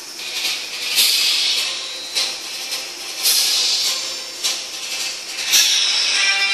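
A series of sudden hissing blasts, each fading away over about a second. Three strong ones come roughly two seconds apart, with smaller ones between. They are battle blast sound effects, and music comes in near the end.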